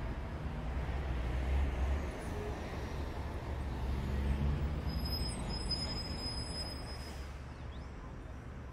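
Diesel engine of a John Deere excavator running under load, a low rumble that swells twice and then eases off.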